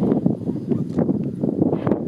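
Stromboli volcano's summit vent erupting in Strombolian style: a rapid, irregular rumbling crackle of gas explosions throwing out glowing lava spatter.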